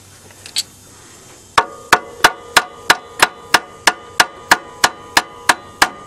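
Hammer blows on the car's seized alternator, metal on metal: a steady run of about fourteen ringing strikes, about three a second, starting about one and a half seconds in. They are meant to free the alternator, which is stuck and burning the belt.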